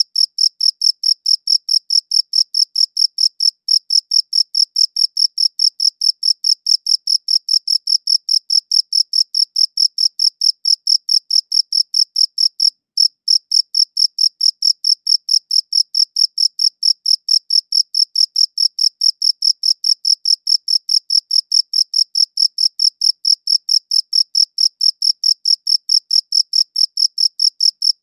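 A cricket chirping in a fast, even, high-pitched rhythm of several chirps a second, with two brief pauses in the pattern.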